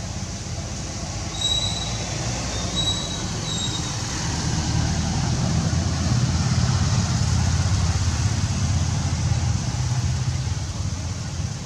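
Steady low rumble, like a vehicle running nearby, that grows louder for several seconds in the middle. Three short high squeaks come in the first few seconds.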